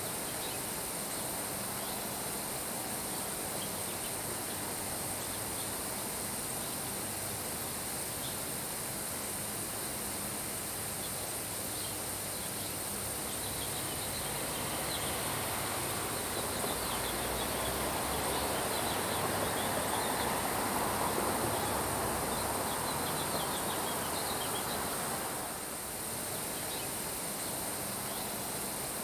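Steady summer rain shower falling on grass, with a swell of wind building through the middle and dropping off suddenly a few seconds before the end. Faint short high chirps sound over the rain.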